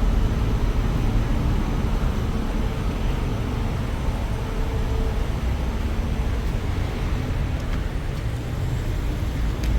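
A motor vehicle driving, a steady low engine and road rumble with no clear changes.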